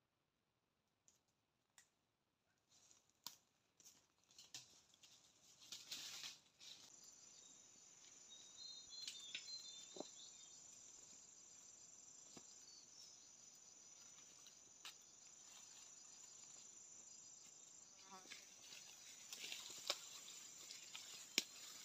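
Scattered rustles and small snaps of brush at first, then from about seven seconds in a steady high insect buzz, with more rustling of leaves and stems near the end as someone moves through the undergrowth.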